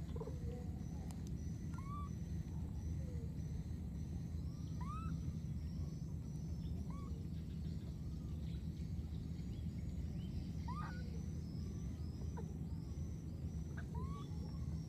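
Birds calling: a high chirp repeated evenly about twice a second, with scattered short rising whistles every second or two, over a steady low rumble.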